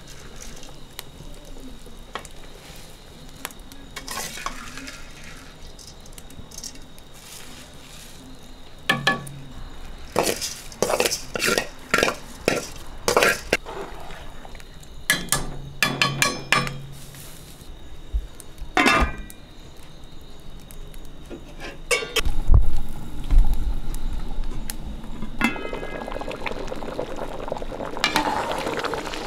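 A metal skimmer ladle stirring rice in a metal pot of boiling stock, clinking and scraping against the pot in a run of knocks through the middle. A loud low thud comes about three-quarters through, and near the end the stock bubbles at a boil.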